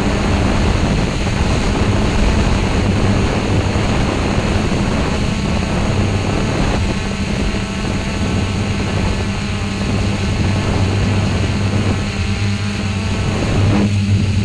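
Multirotor drone's motors and propellers picked up by its own onboard camera: a steady, loud hum with a strong low buzz over a rushing noise, its pitch shifting slightly near the end.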